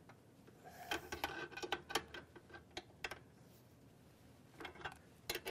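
Faint, irregular metal clicks as a hand wrench tightens nuts onto the bolts holding a lighting fixture to a steel mounting plate.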